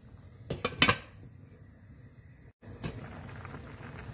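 Pot of pork kimchi stew (kimchi jjigae) simmering on the stove, a soft steady bubbling. Two sharp knocks, the loudest sounds, come close together just under a second in, and there is a short dropout past the middle.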